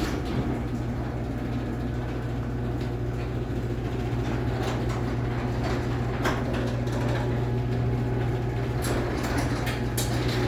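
LiftMaster 3265 AC chain-drive garage door opener running a garage door through its travel: a steady motor hum with chain and door rattles and scattered clicks.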